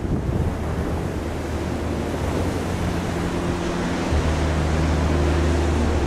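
Continuous rushing surf of large waves breaking offshore. Low sustained notes run beneath it and shift to new pitches about two and four seconds in.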